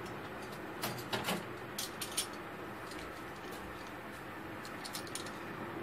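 Steady low room noise with a few faint clicks.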